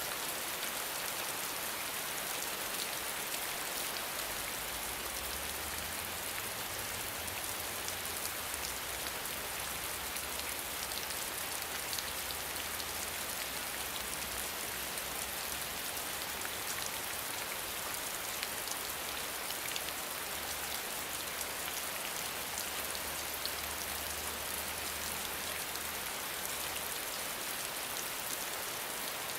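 Steady rain falling: an even hiss with scattered drop ticks, and a faint low rumble underneath from about four seconds in until near the end.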